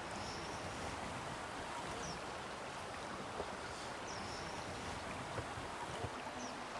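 Quiet background ambience: a low, steady hiss with a few faint, short high chirps and a couple of soft clicks.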